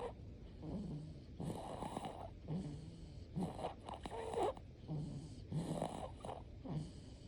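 Snoring: irregular, rattling, snorting breaths coming about once a second.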